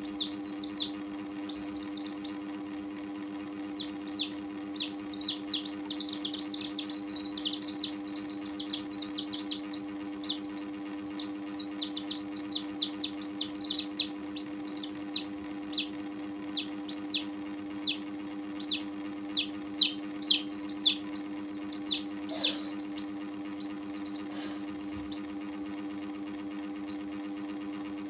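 Domestic chicks peeping: a run of short falling peeps, several a second, that thins out and stops a little after twenty seconds in. A steady low hum runs underneath.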